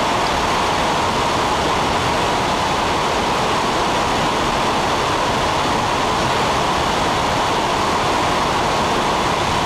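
Steady rush of wind and aircraft noise through a bomber's open bomb bay in flight, even and unbroken throughout.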